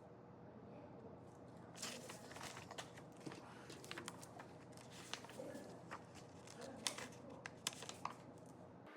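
A run of irregular sharp clicks and taps, several a second, starting about two seconds in over a low steady hum, and stopping shortly before an abrupt change in the background near the end.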